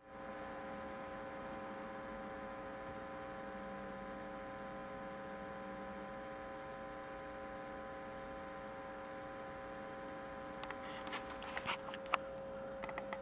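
Pinto J.C. Penney CB radio putting out a steady hum, a stack of even tones, which the owner takes for AC hum; it goes away when the set runs on DC. A few clicks and knocks near the end.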